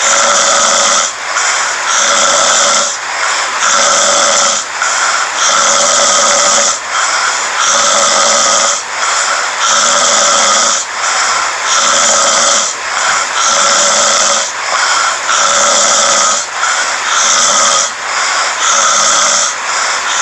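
A sleeping person snoring loudly, a harsh rasping sound rising and falling with each breath in a steady rhythm, about one breath every two seconds.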